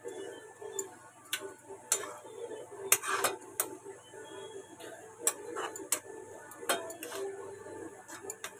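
Metal spatula stirring leaves and green chillies in a metal kadai. It makes irregular clinks and scrapes of metal on the pan, several a second at times.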